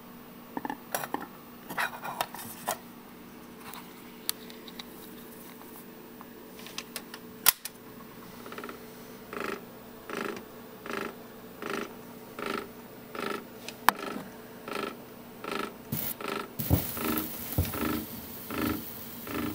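A 78 rpm shellac record turning on a 1970s Philips record player: a few small clicks, then a sharp click about seven seconds in as the stylus meets the disc. After that comes a regular swishing pulse about 1.3 times a second, once per turn of the record, which grows fuller near the end.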